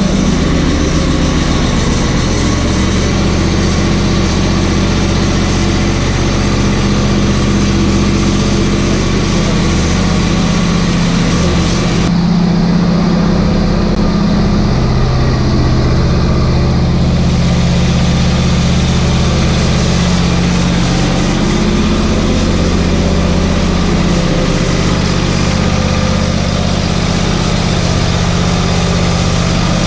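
Ferris Z2 stander mower's Vanguard 28 hp EFI V-twin engine running steadily at idle just after starting, warming up from cold.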